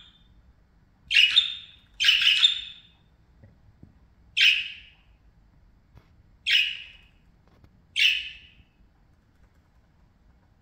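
Budgerigar (pet parakeet) giving five short, harsh chirping calls a second or two apart; the second call is longer and the loudest.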